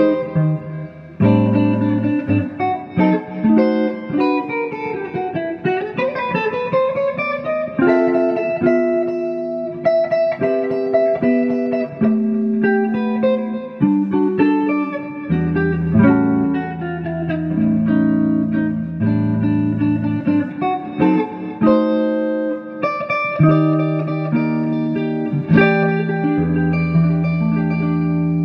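Solo Telecaster-style electric guitar playing a slow chord-melody jazz ballad, fingerpicked: bass notes and chords held under a melody line on top.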